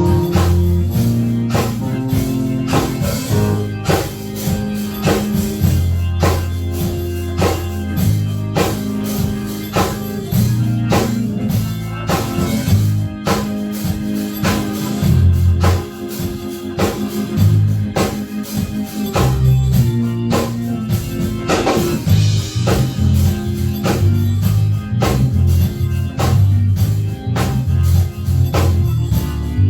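Live church band playing an upbeat instrumental groove with drum kit, bass and guitar, the drums keeping a steady beat during a sound check.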